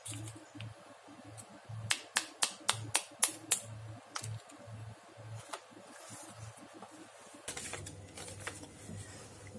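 Thin metal pick tapping the inside of a halved eggshell to punch a drainage hole: a quick run of about ten sharp clicks about two seconds in, then a few scattered taps.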